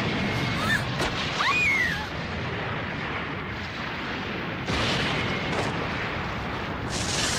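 Continuous rumbling roar of explosion-like sound effects in an animated action scene, with a short high whine that rises and falls about a second and a half in and the rumble growing louder a little past halfway.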